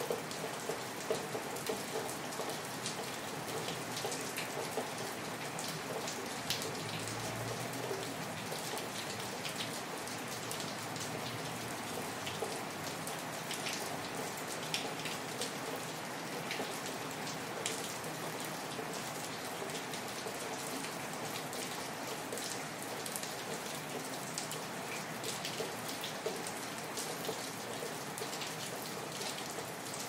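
Steady rain falling, an even hiss with the sharp ticks of single drops striking scattered through it.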